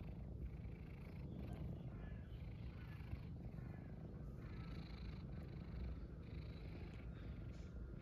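Tabby cat purring steadily while its head is being stroked.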